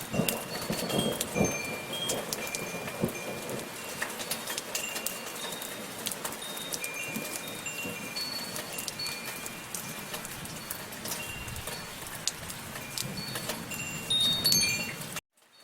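Soft steady rain falling, with wind chimes ringing irregularly in high, clear, overlapping tones. A little before the end the chimes and rain swell louder, then the sound cuts out to silence for a moment and resumes.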